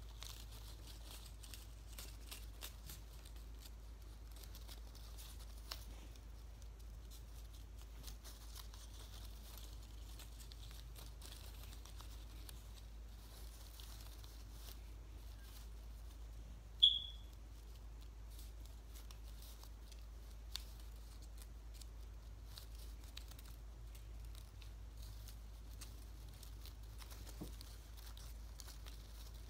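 Black paper strips being folded and handled: faint rustling and crinkling of paper with light scattered ticks over a low steady hum. About two-thirds of the way through, one short, sharp, high-pitched click stands out as the loudest sound.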